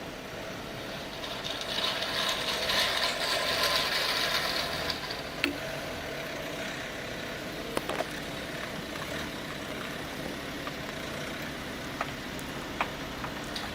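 A heavy van's engine running at low speed as it is driven slowly up ramps, with a few short sharp clicks in the second half.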